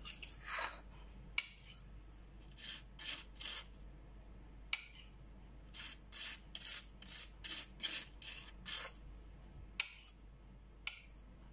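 Table knife spreading butter on a slice of bread: a run of short raspy scraping strokes, several a second, in two spells with a few single strokes between.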